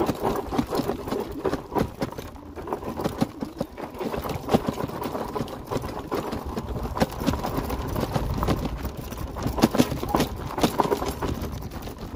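Fat-tire electric bike with four-inch tyres rolling over loose gravel and stones, tyres crunching and the bike rattling in a dense, irregular patter of knocks, with wind rumbling on the microphone.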